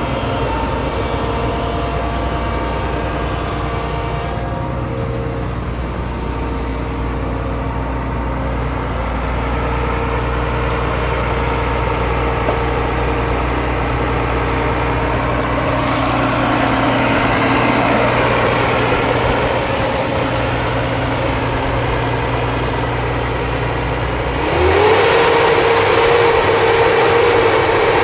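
Asphalt paver's Cummins 5.9-litre diesel engine running steadily at low speed, with a whine that rises and falls midway. About 24 seconds in, the engine speeds up quickly and holds at a higher, louder pitch.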